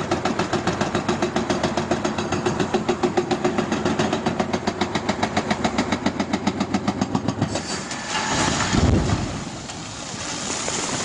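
Excavator-mounted hydraulic breaker hammering into rock in a fast, even run of blows, which stops about seven and a half seconds in. About a second later comes a heavy, low crash and rumble as the rock gives way and falls into the stream, followed by rushing water.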